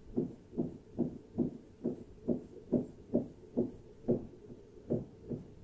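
Pen strokes on an interactive display screen as lines are drawn one after another, a short soft knock for each stroke, a little over two a second.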